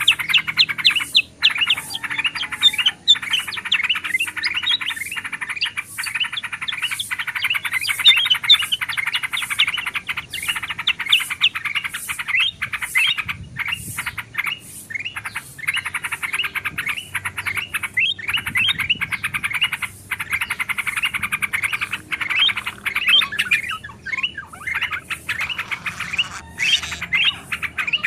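Bulbuls chattering and calling in a dense, unbroken stream of quick chirps, from a looped bird-lure mix of yellow-vented bulbul (trucukan) with kutilang emas and kutilang sutra calls.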